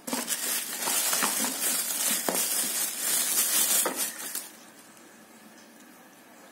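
Clear plastic wrapping crinkling and rustling as a phone charger is pulled out of it and out of its box. The crackling stops about four and a half seconds in.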